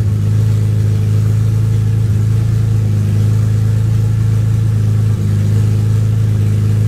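BMW E46 M3's S54 inline-six idling steadily through newly fitted Megan Racing headers with the exhaust's front section not yet installed, so it exits at the headers and is very loud: a deep, even drone.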